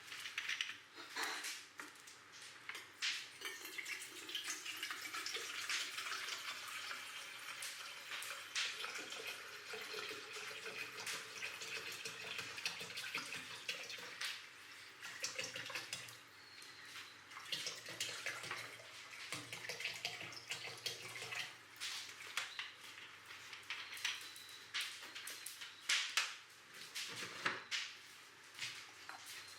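Water running and dripping, with scattered light clicks and knocks.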